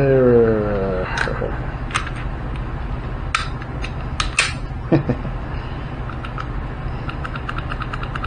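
Sharp metallic clicks and clacks of 9mm pistol slides and frames being handled and fitted together, with a quick run of small ticks near the end, over a steady low hum.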